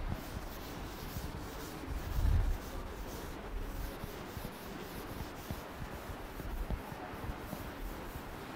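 Chalk scratching on a blackboard as the lecturer writes, with a dull thump about two seconds in.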